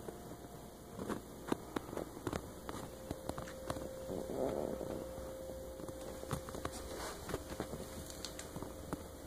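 Steady hum of a room air handler, with a thin steady tone coming in about two seconds in, and scattered light clicks and taps throughout.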